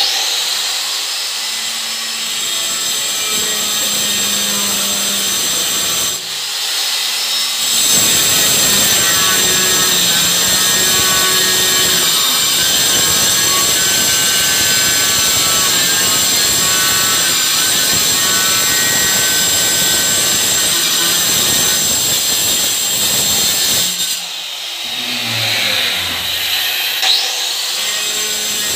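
Handheld electric tile cutter switched on and run through a large 2×4 ceramic tile: a loud, steady whining grind. It eases briefly about six seconds in and again near the end.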